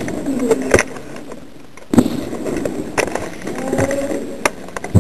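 Four sharp cracks, scattered about a second apart, the loudest about two seconds in, over shuffling movement noise.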